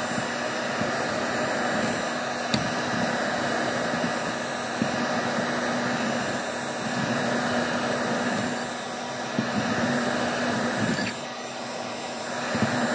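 Electric heat gun running steadily, its fan blowing hot air over an acrylic edge to polish it, with a steady motor hum under the rush of air; the level dips briefly near the end.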